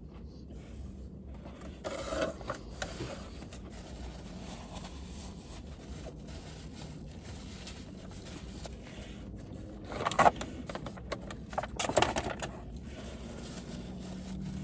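A person eating a hot fried chicken sandwich: a few short bursts of mouth and handling noise, about two seconds in and again around ten and twelve seconds in, over a steady low hum.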